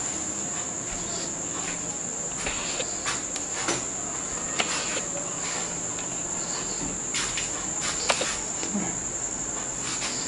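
A steady high-pitched chirring of insects, crickets by its sound, unbroken throughout, with scattered light clicks and knocks over it.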